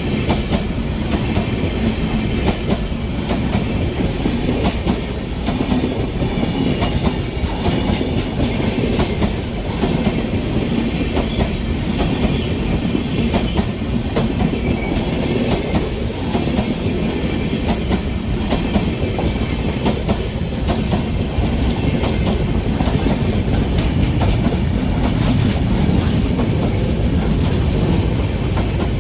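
Freight train wagons rolling past close by, the wheels clicking steadily and rapidly over the rail joints with a continuous rumble. The sound runs unbroken at an even loudness, with no horn.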